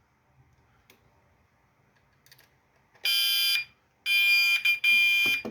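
Gentex Commander fire alarm horn strobe starting to sound about three seconds in, in short repeated blasts of a steady high tone near 2400 Hz. It goes off as soon as the cable is plugged into the Midland weather radio, with no alert set off, which is put down to the way the radio's switching works: the wires on the plug need swapping.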